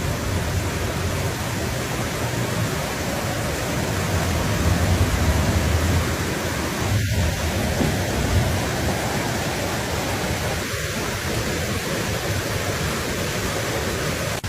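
Steady, loud rushing of floodwater pouring through a flooded wadi during a flash flood.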